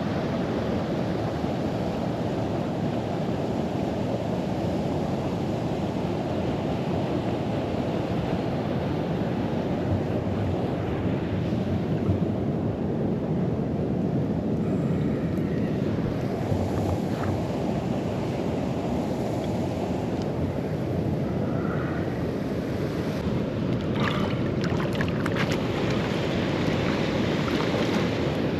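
Steady rushing noise of flowing water, with wind on the microphone, and a few faint clicks near the end.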